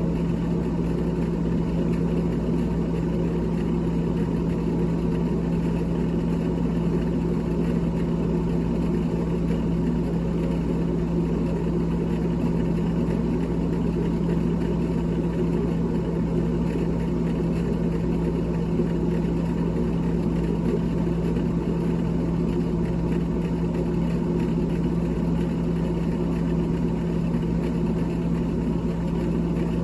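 A small electric motor running with a steady hum, one constant low tone over an even whirring noise that does not change.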